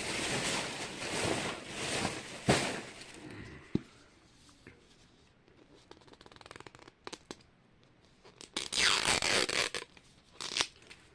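Plastic toy packaging being torn open and handled: ripping and rustling in bursts during the first three seconds and again about nine seconds in, with a few sharp clicks between.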